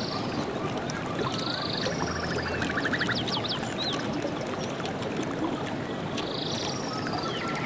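Steady rushing of stream water with birds calling over it: short calls repeating, and a quick trill about two to three seconds in.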